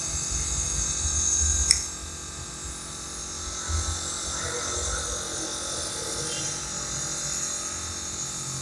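Nebuliser compressor running with a steady motor buzz and a high hiss of air through the mask, during a child's cough treatment. A single sharp click comes a little under two seconds in.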